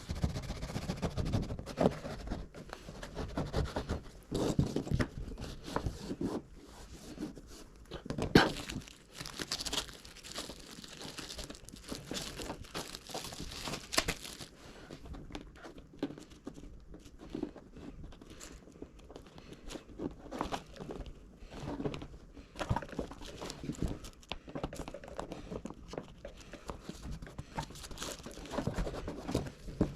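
Crinkling, rustling and tearing of paper and tape being handled and pulled, with irregular sharp clicks and crackles, as the panel is masked off.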